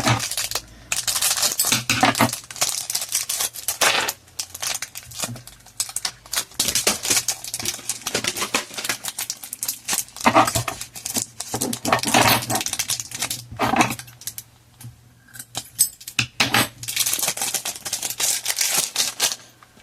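A plastic-wrapped pack of Pokémon trading-card energy cards being opened and the cards handled: irregular rustling and clicking, with a quieter pause about fifteen seconds in.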